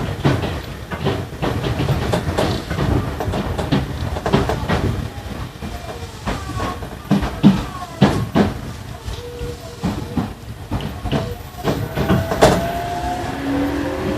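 Tokyu 1000 series GTO-VVVF electric train heard from inside the car while running: a low rumble with repeated clicks and knocks from the wheels over rail joints and points. Near the end the inverter and motor whine comes in, rising in pitch.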